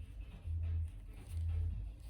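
Background music with a deep bass note repeating about every three-quarters of a second.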